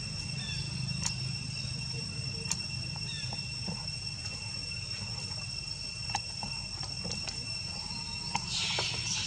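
Insects chirring outdoors in a steady, unbroken high drone, with a few faint clicks and chirps. A short burst of noise comes near the end.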